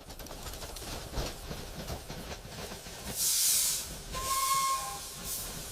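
Steam train sounds: a rumbling, clattering run with bursts of steam hiss, and a short whistle about four seconds in.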